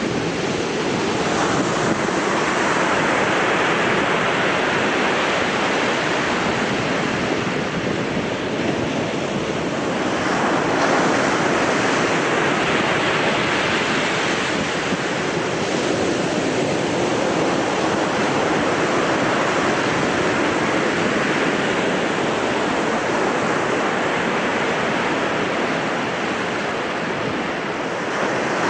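Baltic Sea surf breaking on a sandy shore in rough weather, a continuous rushing that swells and eases every few seconds, with wind buffeting the microphone.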